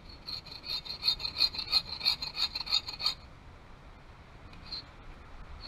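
Bow saw cutting through a wooden pole, with quick back-and-forth strokes for about three seconds, then stopping.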